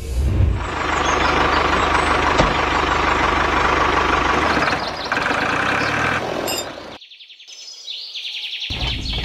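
Diesel tractor engine running steadily with a low rumble, cutting out about seven seconds in. Birds chirp briefly, then the engine sound returns near the end.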